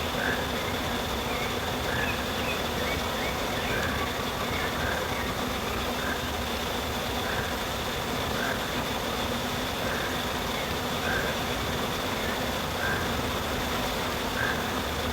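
Toucan calls: short notes repeated every second or so, over a steady high insect drone and forest background noise.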